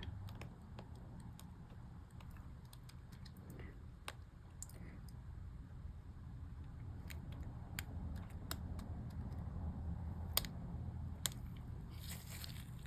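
Scattered small plastic clicks as a MacBook keycap is worked onto the hooks of its key mechanism, the sharpest about 4 seconds in and twice more after about 10 seconds, over a steady low hum.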